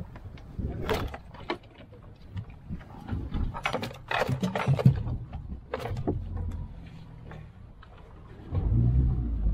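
A freshly landed mahi-mahi thrashing on a boat deck: a run of irregular knocks, slaps and clatters, with a low rumble coming up near the end.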